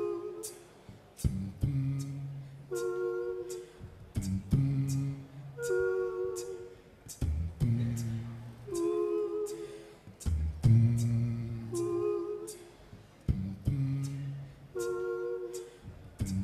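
A looped, multi-layered a cappella arrangement built from one man's voice: a low hummed bass line under higher sustained sung harmonies, with sharp mouth-percussion clicks keeping the beat. The whole phrase repeats about every three seconds.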